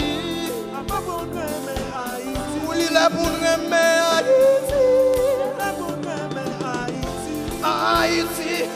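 Male singer with a live band of keyboard and electric guitars: long held sung notes and runs, one held note about halfway through, over a steady beat.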